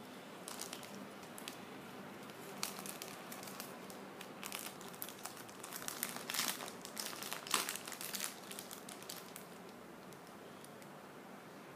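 Thin clear plastic packaging crinkling as it is handled, in irregular crackles that are loudest a little past the middle and stop about two seconds before the end.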